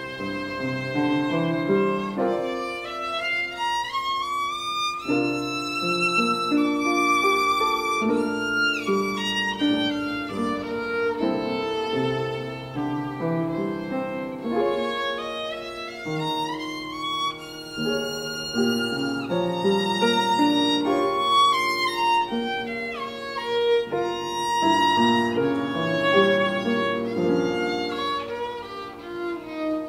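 Violin and grand piano playing together: the violin carries a melody with vibrato that climbs to high notes several times, over piano chords.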